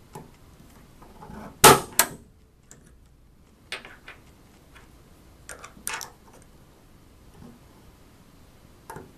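Hammer blows on a steel letter stamp held in a hand stamp machine, marking characters into a metal tag: sharp metallic strikes in pairs, the loudest a double blow about 1.7 s in, another pair about 6 s in, with lighter knocks between as the tag is slid to the next position.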